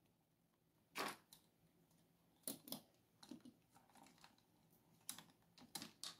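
Scattered light clicks and knocks of small hard parts being handled as an RC truck's shock absorber is unbolted with a hex screwdriver and lifted off. The sharpest knock comes about a second in, followed by a handful more.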